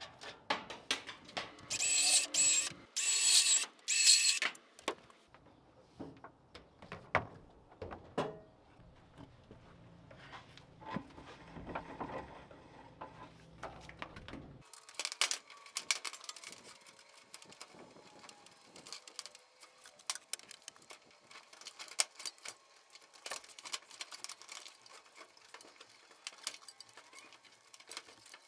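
Electrical wires and a steel fish tape being pulled through metal conduit fittings, heard as scraping and rustling with scattered clicks. Three loud scraping pulls come about two to four seconds in.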